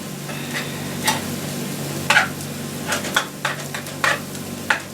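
Hamburger with bell peppers and onions sizzling in a frying pan, with a spoon stirring it and scraping and tapping against the pan at irregular moments.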